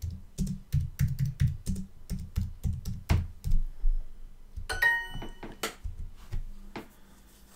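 Typing on a computer keyboard: a run of quick key clicks, several a second, then a pause and a few more clicks. About five seconds in there is a brief pitched sound.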